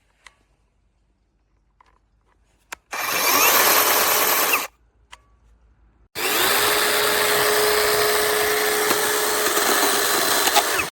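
Battery-powered 12-inch electric chainsaw running in two bursts: a short run of about two seconds, then a longer run starting about six seconds in with a steady motor whine.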